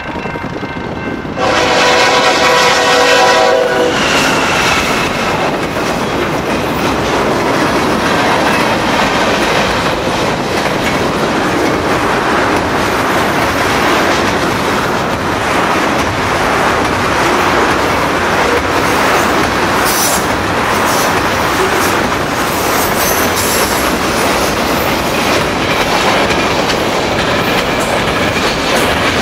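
A level-crossing bell rings, then a CN ES44DC diesel locomotive sounds one long horn blast about a second and a half in and passes. A long freight train of tank cars follows, rolling by with steady wheel clatter over the rails, and a few sharp metallic squeals come about two-thirds through.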